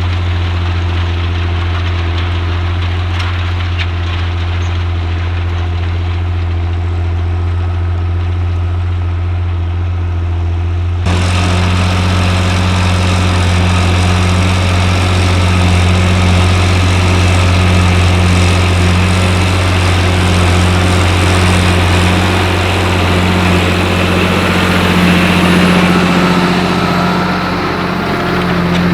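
John Deere 8300 tractor's six-cylinder diesel engine running steadily, pulling a seven-furrow plough. About eleven seconds in, the sound changes abruptly to a fuller, noisier mix.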